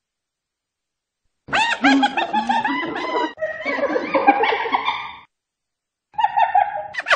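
Spotted hyena giggling: a rapid run of high, rising-and-falling notes lasting about four seconds, starting about a second and a half in, then a shorter burst of the same near the end.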